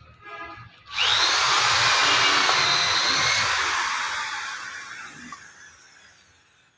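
A power tool switched on with a sudden whirring rush, running for about two seconds and then slowly winding down and fading out.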